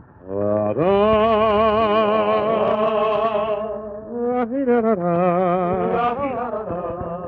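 A male crooner singing long held notes with wide vibrato, with a short sliding note between them, over a quiet low accompaniment. The sound is thin and cut off above the upper mid-range, like an old recording.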